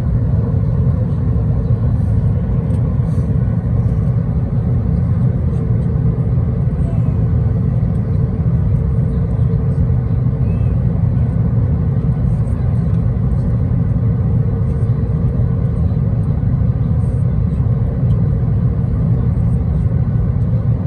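An airliner's engines running, a loud, steady low rumble with a constant hum above it.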